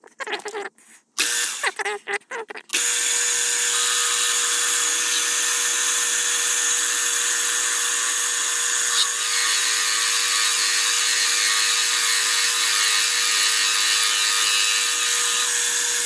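Short handling knocks and clatter, then about three seconds in a milling machine's spindle starts and runs steadily, spinning aluminum bar stock against a lathe tool bit held in the vise, with a steady hum and a hiss of cutting. It stops near the end.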